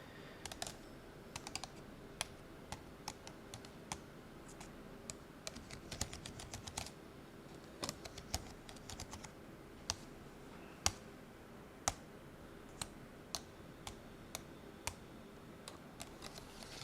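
Long fingernails tapping: sharp, irregular clicks, some in quick little runs and others single taps about a second apart.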